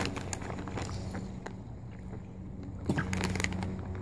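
Italian dressing being poured from a plastic bottle into a zip-top bag of raw chicken thighs: quiet, with a few soft crinkles and taps from the plastic over a steady low hum.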